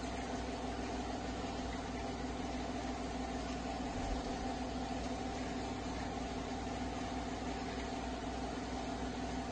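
Steady mechanical hum under a constant hiss, with a soft bump about four seconds in.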